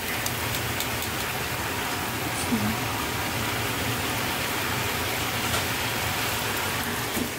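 Oil and beef marinade sizzling steadily in a frying pan while beef steak is being fried.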